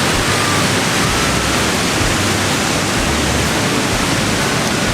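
Li Phi waterfall's water rushing through rock channels: a loud, steady, dense rush with no break.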